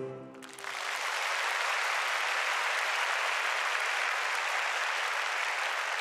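The music's last held notes die away in the first second, then a large audience breaks into steady applause.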